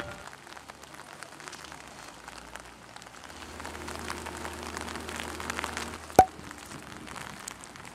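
Light rain falling, with scattered drop ticks over an even hiss, and a faint low hum from about three seconds in. One sharp click about six seconds in is the loudest sound.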